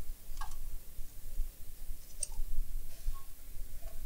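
A few light, separate clicks of small metal tools and parts being handled on an electronics workbench, over a low, uneven rumble of handling noise.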